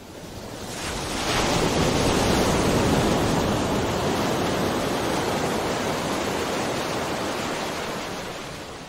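Ocean surf washing onto a beach, a steady rushing wash of waves. It fades in, swells over the first couple of seconds, then slowly eases and fades out near the end.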